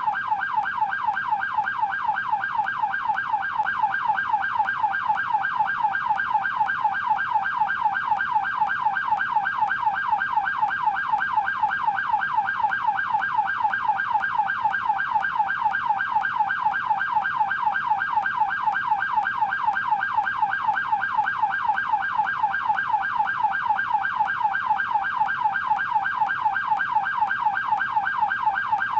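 Police car siren on yelp: a rapid, steady up-and-down wail, about three sweeps a second.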